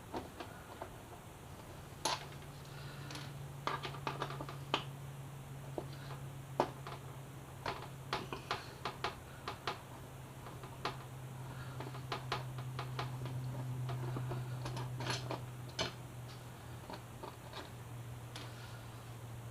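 Irregular light clicks and taps of hand tools and plastic fairing pieces as a motorcycle fairing is unbolted and unclipped, over a steady low hum that starts about two seconds in.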